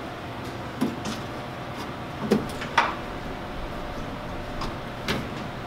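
Handling noise from a wire harness being fed down through a pickup's tailgate: four short knocks and clicks spread over a few seconds, over a steady low background noise.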